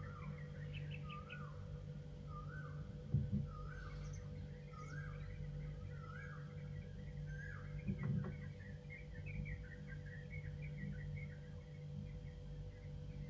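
A bird chirping, a short call about once a second that gives way to faster, higher twittering after about eight seconds, over a steady low hum. Two brief soft thumps, one about three seconds in and one about eight seconds in.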